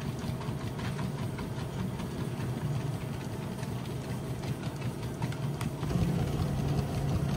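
Dog treadmill running steadily, its motor and belt giving a low, even hum, with faint scattered ticks of two small dogs' paws trotting on the belt.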